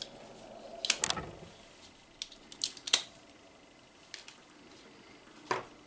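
Scattered sharp clicks and small rattles of plastic and metal robot-kit parts being handled, with the sharpest click about three seconds in.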